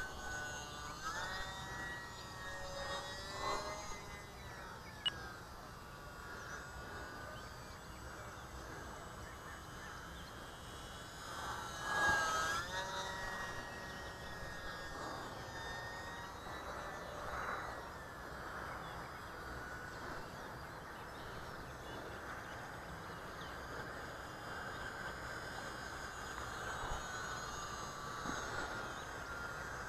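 Small electric motor and propeller of an E-flite UMX Pitts S-1S micro RC biplane whining in flight, the pitch rising and falling as it manoeuvres and swells about twelve seconds in. A single sharp click about five seconds in.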